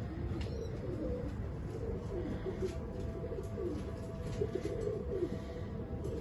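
Pigeons cooing, with many low rolling coos following one another and overlapping, over a steady low rumble.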